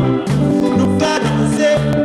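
Music playing: a bass line stepping from note to note, with a voice singing over it.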